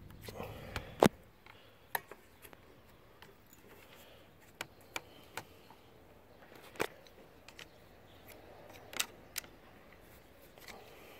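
Scattered sharp clicks and taps of a thin flat screwdriver prying at the plastic lock of a wiper-blade adapter on the wiper arm, the loudest about a second in.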